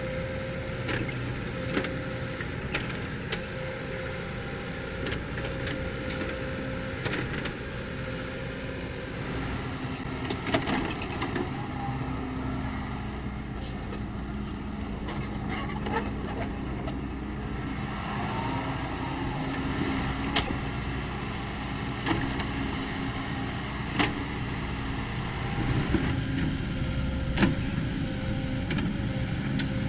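Kobelco SK75 mini excavator's diesel engine running steadily under working load, its pitch shifting a little partway through, with scattered clanks and knocks from the digging.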